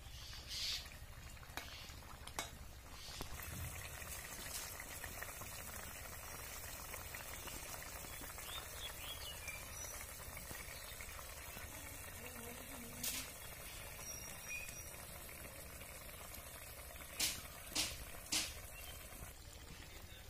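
Curry of water lily stems and small fish boiling in a wok, a steady bubbling hiss. A few sharp clicks break in, three close together near the end.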